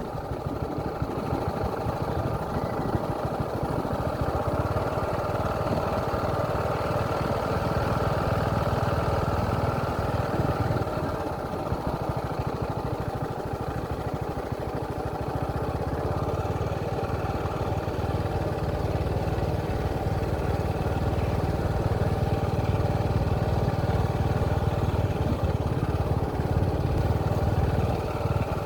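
A motor vehicle's engine running steadily and continuously, with a strong low rumble.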